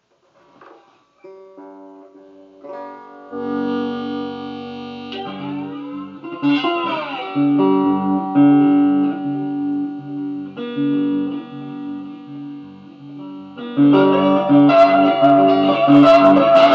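Guitar played with a slide, starting quietly with single notes. About six seconds in the notes glide up and down in pitch. From about fourteen seconds in the playing gets louder and fuller.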